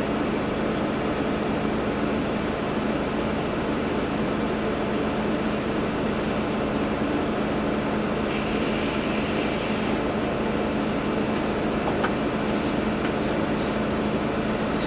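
Volvo EC240B excavator's diesel engine running steadily with a constant low hum, with a few light knocks about twelve seconds in.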